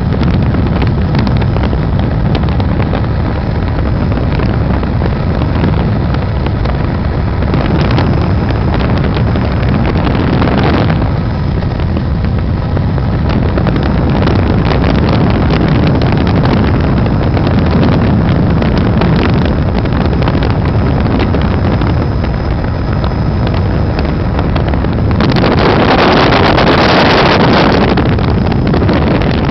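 Helicopter in flight: loud, steady rotor and engine noise with wind buffeting the microphone, and a stronger rush of noise for about three seconds near the end.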